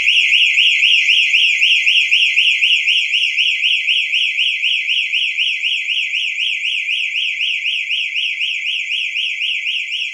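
Electronic alarm siren of a ThinkX XGen door security system sounding in panic (SOS) mode, set off from its touch keypad. It is a loud, high-pitched electronic warble that rises and falls rapidly and evenly without a break.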